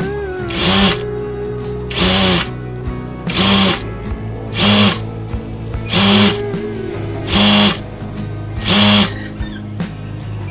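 Industrial lockstitch sewing machine with a computerized direct-drive motor, stitching a narrow rolled hem in short runs. Each run is about half a second long and they come about every 1.4 s, seven in all, with the motor speeding up and slowing down each time. Background music plays throughout.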